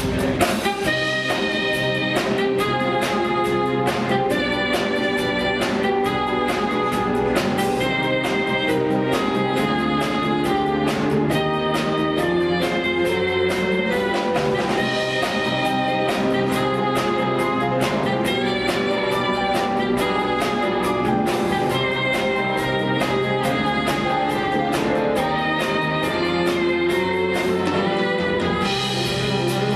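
Instrumental show music with a steady beat and held notes, accompanying a stage illusion act.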